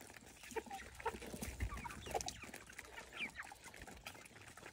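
A flock of domestic chickens clucking softly while they feed, with short, scattered calls.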